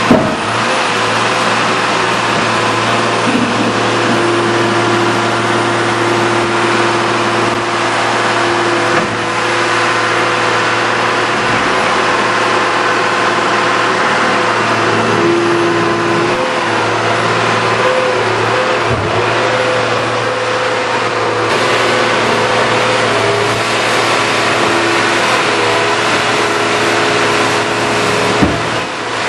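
Cummins 5.9-litre six-cylinder turbo diesel of a baler/logger running steadily. A higher whine comes and goes over the engine several times. A short sharp knock sounds right at the start.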